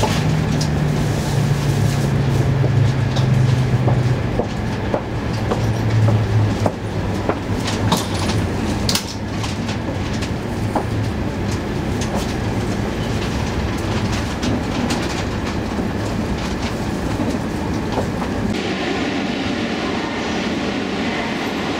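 Running noise inside an E2 series Shinkansen car as it slows on the approach to its terminus: a steady rumble with a low drone that falls in pitch over the first several seconds, and scattered sharp clicks of the wheels over rail joints and points. About eighteen seconds in the sound shifts abruptly.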